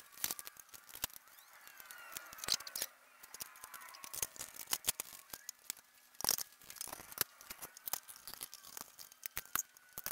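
Scattered clicks, taps and knocks of metal parts and small tools being handled and fitted together while assembling a 200mm Carbatec benchtop jointer.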